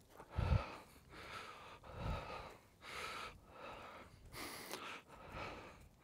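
Slow footsteps crunching through wood-chip mulch, about one step a second, with two duller thuds about half a second and two seconds in.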